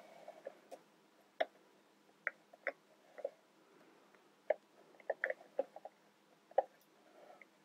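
Plastic toy construction pieces clicking and tapping as cross members are pushed onto the columns of a toy crane tower: scattered short, light clicks, about a dozen, with quiet between them.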